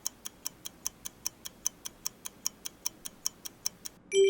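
Clock-ticking countdown sound effect, a sharp tick about five times a second, marking the answer time. Near the end the ticking stops and a bell-like ding rings out.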